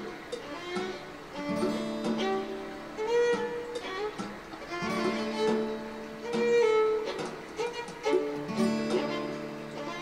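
Instrumental music in a traditional Chinese style: a slow bowed string melody over repeated plucked string notes.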